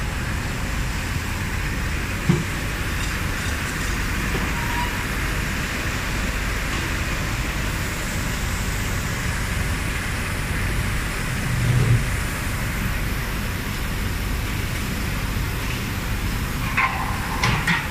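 Steady drone of factory machinery from a running powder electrostatic spraying line for brake pads: a low rumble with a hiss above it. A single short knock about two seconds in.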